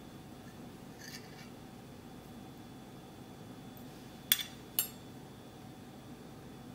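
Two sharp clinks, about half a second apart, of a metal spoon against a glass mixing bowl while baking powder is spooned in, over a faint steady room hum.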